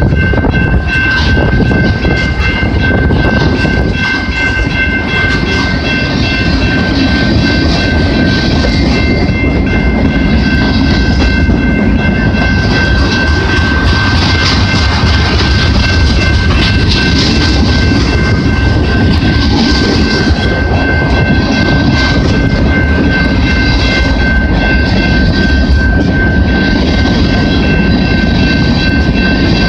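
Freight cars of a CP freight train rolling past at close range, wheels clattering over the rails, with a steady high-pitched squeal running under the rumble.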